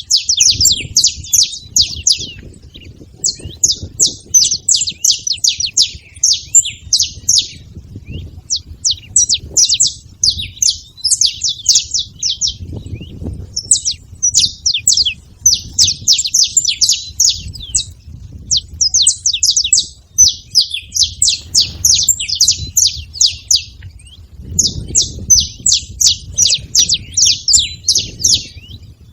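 Saffron finch singing: long phrases of rapid, sharp chirping notes in quick succession, broken by short pauses.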